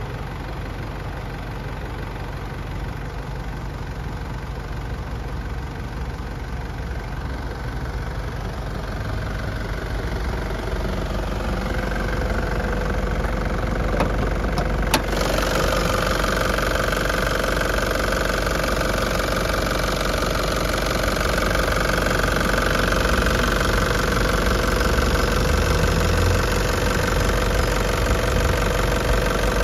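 Nissan ZD30DD 3.0-litre direct-injection diesel idling steadily. It is heard louder and closer from about halfway through, over the open engine bay, with a single sharp click just before.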